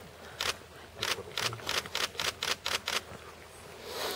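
Lions feeding on a warthog carcass, crunching and tearing at bone and flesh in a quick, irregular series of sharp crunches, with a brief soft rush of noise near the end.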